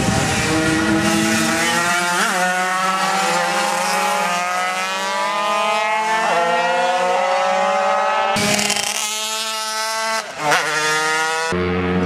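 Small classic racing motorcycles with high-revving engines, several at once, accelerating through the gears: each engine note climbs steadily, then drops back at a gear change, several times over.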